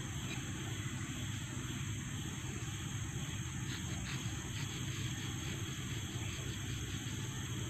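Steady high-pitched drone of forest insects. From about halfway through come faint light clicks as a knife cuts into the skin of a green asam poron fruit.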